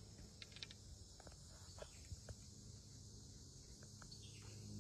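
Near silence: a faint, steady high insect drone, with a few scattered light clicks and chirps.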